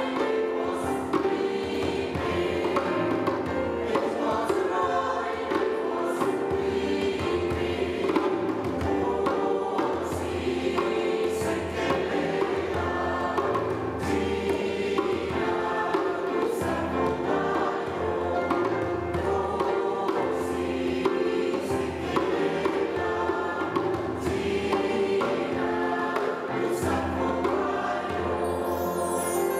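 Mixed choir singing in harmony, accompanied by keyboard and a hand drum struck at a steady pulse.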